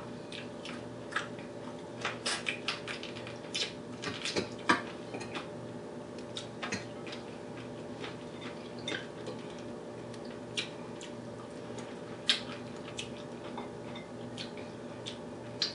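Mouth and hand eating sounds: scattered wet clicks and smacks from chewing a mouthful of fufu with meat and from fingers working the food in the bowl, busiest in the first few seconds and sparser after. A steady low hum runs underneath.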